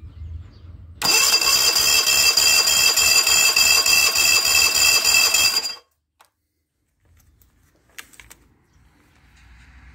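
Two-cylinder Yamaha 25 hp four-stroke outboard being cranked over without firing for about five seconds, with a steady whine and an even pulsing beat, then stopping suddenly. This is a compression test on the lower cylinder, which reads about the same as the upper's nearly 13.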